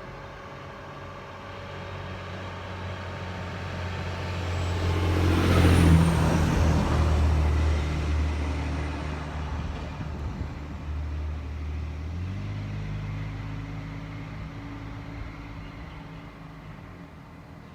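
A motor vehicle passing: an engine hum and rush that swell to their loudest about six seconds in, then fade away, with the engine note changing about twelve seconds in.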